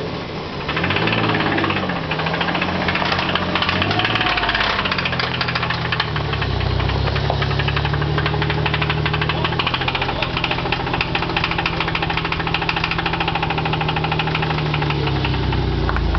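Nissan VG-series V6 truck engine running with a loud, rapid rod knock as the truck creeps along, the revs rising and dropping a few times. The knock comes from bearings worn out after gasoline washed past the rings into the oil.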